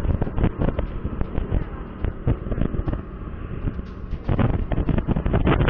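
Motorcycle riding through traffic, with wind buffeting the helmet microphone: a dense, irregular crackling rumble that eases for a couple of seconds in the middle and then picks up again.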